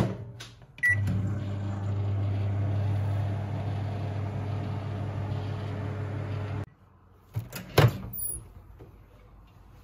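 Microwave oven door shut with a click, a short beep, then the oven running with a steady hum as it heats a bowl of milk. The hum cuts off suddenly about six and a half seconds in, followed by a couple of sharp clicks of the door being opened.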